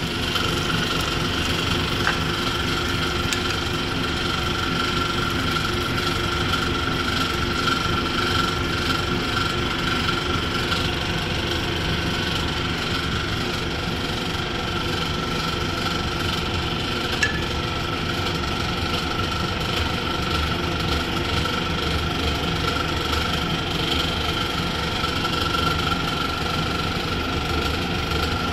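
A steady mechanical hum with a constant high whine running through it, and a single sharp click about seventeen seconds in.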